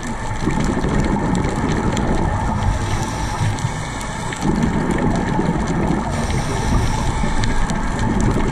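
Muffled underwater ambience picked up through a dive camera's housing: a low rumble of a scuba diver's exhaled bubbles, swelling about half a second in and again about four and a half seconds in, with faint scattered clicks.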